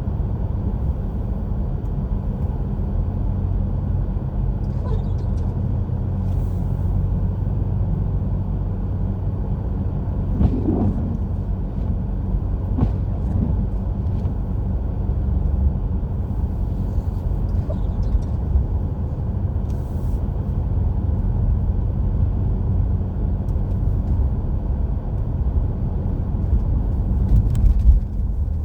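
Steady low rumble of a car's engine and tyres heard inside the cabin while driving on a snowy road, with a few faint clicks.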